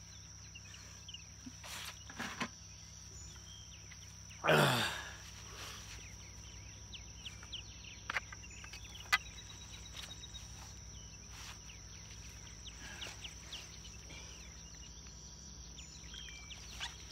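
Quiet outdoor ambience at a pond: a steady high insect drone with faint scattered chirps and a few light clicks. About four and a half seconds in, a brief louder whoosh falls in pitch.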